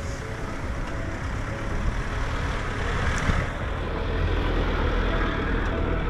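Vehicle driving, its engine and tyres giving a steady low rumble with a rushing noise over it.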